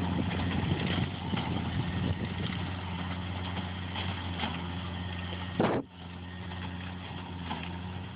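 Deutz D 6207 tractor's three-cylinder air-cooled diesel engine running steadily with a low, even hum. A short, sharp noise comes about two-thirds of the way in, after which the engine sounds slightly quieter.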